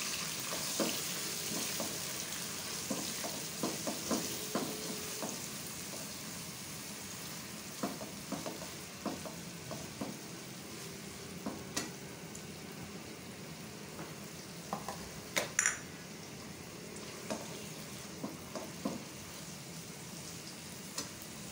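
Sliced onions sizzling in about a cup of hot ghee in a nonstick wok, being fried toward golden, with the hiss easing a little over time. A silicone spatula stirs them, scraping and knocking against the pan now and then, loudest in a quick pair about fifteen seconds in.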